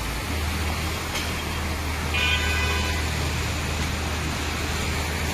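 Road traffic: a vehicle engine running steadily under a steady hiss, with a brief higher-pitched sound about two seconds in.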